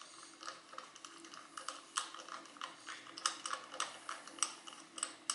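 Socket wrench turning the crankshaft pulley's central bolt on a Ford Zetec engine, giving light, irregular metallic clicking as the bolt is run in.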